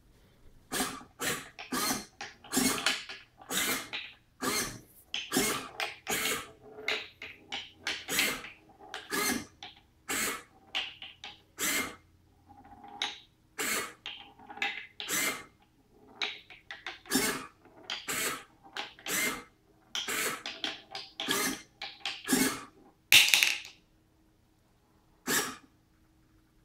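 Hobby servomotors whirring in short, irregular bursts, about one to two a second, as they tilt a wooden maze board back and forth.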